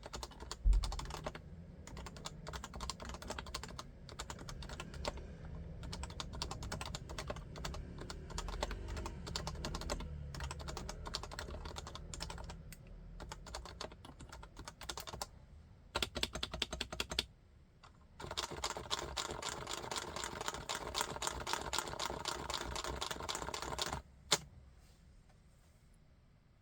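Typing on an HHKB Classic keyboard with Topre electrostatic capacitive switches: a steady, clattery run of keystrokes with a brief pause about 18 seconds in. The typing stops about 24 seconds in after one louder keystroke.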